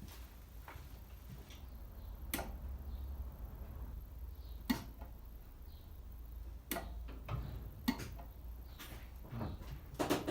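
A few sharp clicks and light knocks at uneven intervals over a low hum, with no steady ticking from the newly fitted Facet electric fuel pump: the pump is not running when the ignition is switched on.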